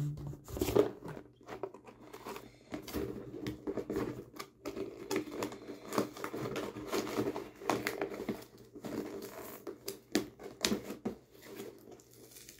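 Cardboard shipping box being opened by hand: irregular tearing, crinkling and scraping of cardboard and packaging, with scattered small knocks.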